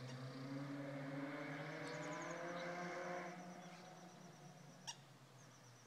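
Chevrolet Cobalt SS with its electric exhaust cutout open, heard from a distance as it accelerates hard along the canyon road, the engine note climbing in pitch. The sound fades away after about three seconds.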